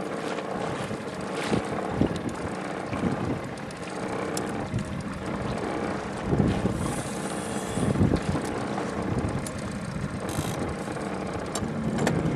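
Wind buffeting the microphone and choppy water slapping against a small open aluminium boat, over a low, steady motor hum, with a few louder knocks against the hull.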